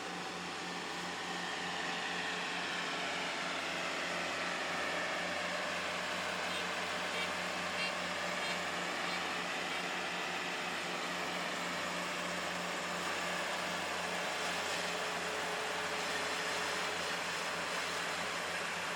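Kubota five-row combine harvester running steadily while harvesting rice: a constant mechanical drone of engine and threshing machinery, with a few higher tones that slowly rise and fall as the engine load shifts.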